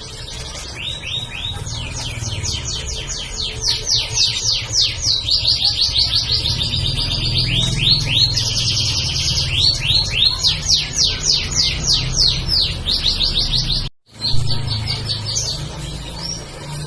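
Canary singing a long, continuous song of trills: runs of quick down-slurred notes repeated several times a second, alternating with faster buzzy rolls, changing from one trill to the next. The song breaks off for an instant about fourteen seconds in, then carries on.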